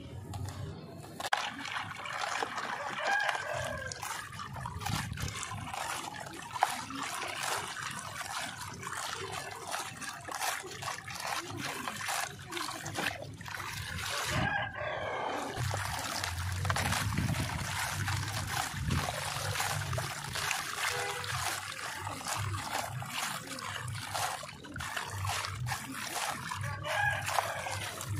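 Handfuls of dry, gritty charcoal-and-sand mix crumbled and let fall back into a plastic tub: a steady grainy pattering of falling grains full of small crackles. After a short break about halfway through, fine sandy powder pours from the hands in streams.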